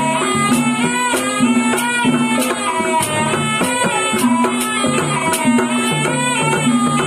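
Live ebeg accompaniment: a slompret, the Javanese double-reed shawm, plays a bending, wavering melody over a steady percussion beat and repeating low pitched notes.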